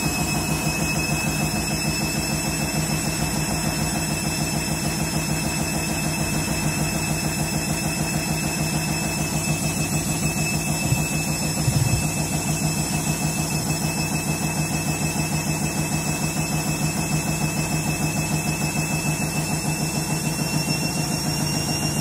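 Front-loading washing machine on its final spin, running very out of balance: a steady motor hum and high whine under a fast, even pulsing from the lopsided drum, with one louder knock about halfway through.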